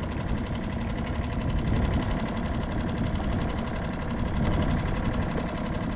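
Skiff's outboard motor running steadily at idle in gear.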